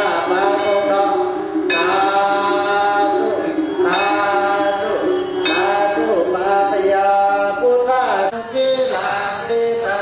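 A Buddhist monk chanting Pali verses into a microphone, in a drawn-out melodic voice with long held notes that slide between pitches.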